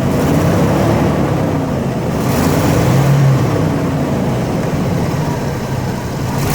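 Chevy 454 big-block V8 running at a steady, low speed, its note wavering gently up and down. It is fitted with a new HEI ignition control module and rotor, and runs smoothly.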